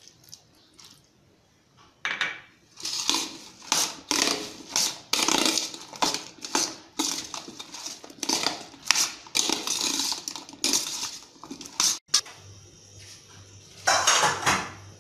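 Steel skimmer spoon scraping and clinking around a stainless steel bowl as chunks of elephant foot yam are tossed in masala and tamarind liquid, about two strokes a second. It stops abruptly, then a low steady hum with one more short scrape near the end.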